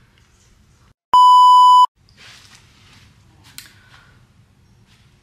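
A single loud, steady electronic beep lasting under a second, about a second in. The background drops out completely while it sounds, as an edited-in bleep tone does. Faint rustling follows.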